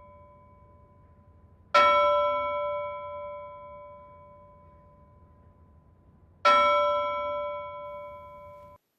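A bell struck twice, about five seconds apart, each strike ringing on with several clear tones and slowly fading; the ring cuts off suddenly near the end.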